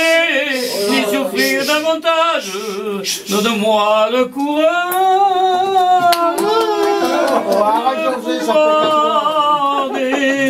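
A person singing a slow song unaccompanied, holding long wavering notes.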